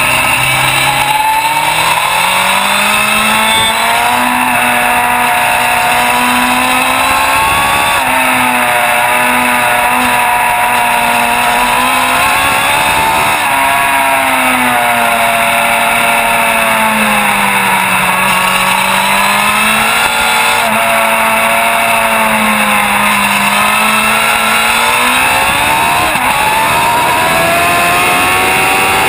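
Sport motorcycle engine at high revs, heard from the rider's seat. Its pitch repeatedly climbs and drops as the bike accelerates and slows through corners, then climbs steadily near the end as it picks up speed on the straight.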